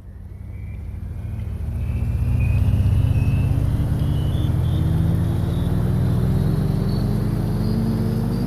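A motor vehicle running and picking up speed, its engine note climbing slowly and steadily, with road noise. It fades in over the first two seconds or so.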